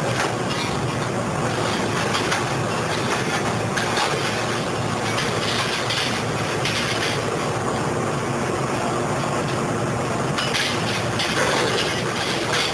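Wheeled material-handling excavator running as its hydraulic multi-tine scrap grapple digs into and lifts a load of scrap metal, with the scrap clanking and scraping throughout.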